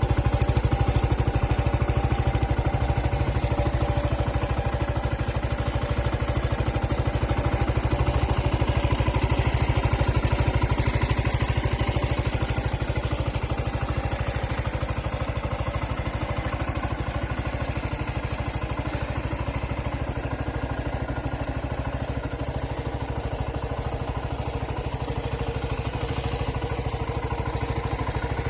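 Zontes U1 motorcycle engine idling steadily, heard through its exhaust, with no revving.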